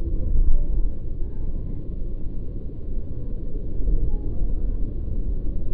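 Steady low road and engine rumble inside a car cruising at freeway speed.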